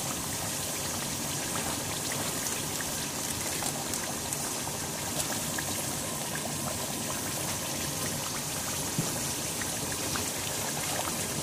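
Chicken curry bubbling and sizzling steadily in a pot of oil and broth on the stove, with a dense patter of tiny crackles.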